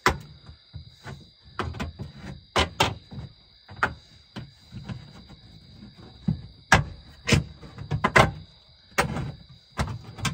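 Hand tools cutting and knocking on sheet metal while a round hole is opened in a metal-clad house wall: an irregular run of sharp clicks, snaps and knocks, louder ones coming in the second half. A steady high-pitched whine runs underneath.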